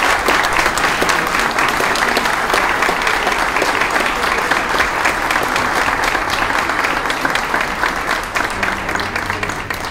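Audience applauding, a dense patter of many hands clapping that slowly eases off toward the end.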